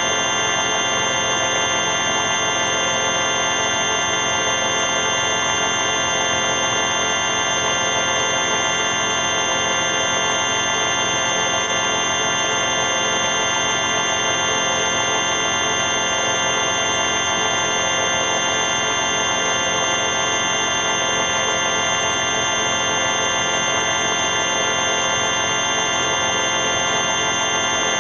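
4ormulator V5 electronic sound effect: a steady synthetic drone of many held tones stacked together, with a fast, even flutter in its middle range and no change in level.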